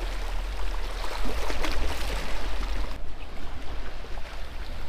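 Small waves washing onto a beach at high tide, a steady wash of water with wind rumbling on the microphone.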